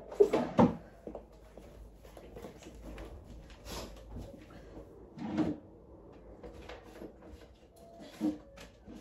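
Scattered knocks and thumps of household things being handled, like drawers or cupboard doors: two close together at the start, one about halfway through and one near the end.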